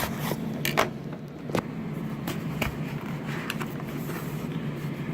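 Cardboard packaging being opened and handled by hand: scattered short clicks, taps and rustles, over a steady low hum.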